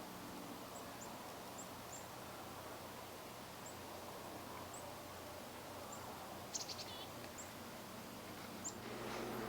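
Birds chirping faintly: short high chirps every second or so, with a louder cluster of calls about six and a half seconds in. Steady background hiss and low hum underneath, getting louder near the end.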